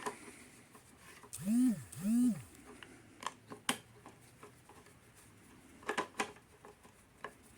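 A power drill-driver run in two short bursts, its motor whine rising and falling each time as it drives a bolt in. A few light metallic clicks and knocks from tools and parts follow.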